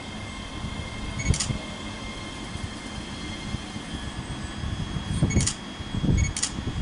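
ScotRail Class 385 (Hitachi AT200) electric multiple unit drawing slowly into the platform and coming to a stand. It gives a steady electric hum with a faint high whine, broken by three short sharp clanks from the running gear, about a second in and twice near the end.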